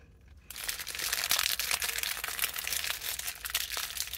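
Paper food wrapper crinkling and rustling as it is handled, starting about half a second in.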